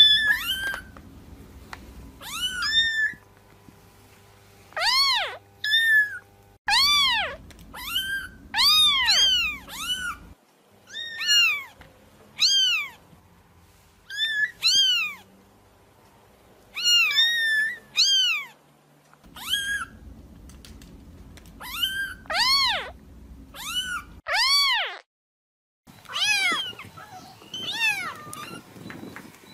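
Kitten meowing: short, high meows that rise and fall in pitch, coming in quick runs of several at a time with brief pauses between.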